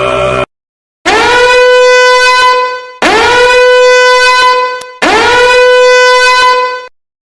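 A loud horn-blast sound effect played three times in a row, each blast about two seconds long, sliding quickly up into one held, buzzy note. Just before it, a low droning chant-like sound cuts off, followed by a brief silence.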